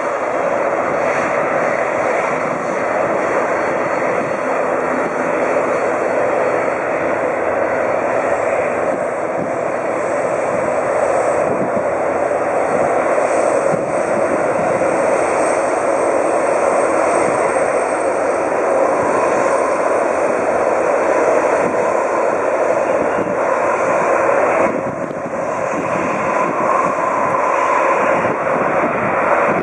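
Twin jet engines of a Boeing 767-300ER running loud and steady, a dense rush of noise with a faint high whine over it. The noise dips briefly about 25 seconds in, then comes back.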